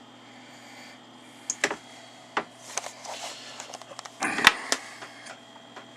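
Scattered clicks and taps at a computer keyboard, irregular, with the loudest quick cluster a little past the middle.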